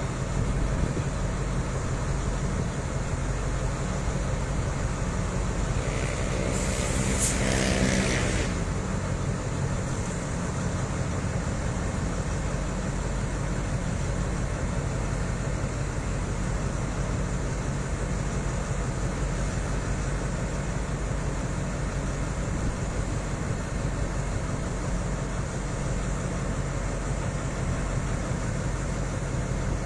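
Diesel-electric locomotive engine of a Thai Alsthom (ALS) locomotive idling steadily at the head of a standing train. About six seconds in, a short hiss with a tone rises above it for roughly two seconds.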